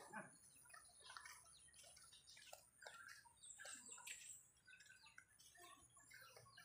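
Near silence, with faint scattered bird chirps.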